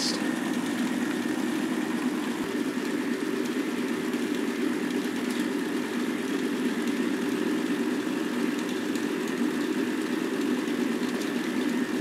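K'nex electric motor driving the plastic gear train of a K'nex robot arm, a steady whirring hum as the arm joint runs through its programmed moves.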